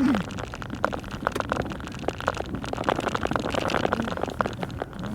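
Icy, rice-like snow grains ticking and pattering irregularly against a moving car, over steady road noise heard inside the cabin.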